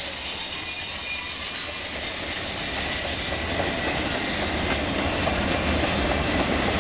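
CN freight train cars rolling past, a steady wheel-and-rail rumble with thin high squeals from the wheels. It grows gradually louder.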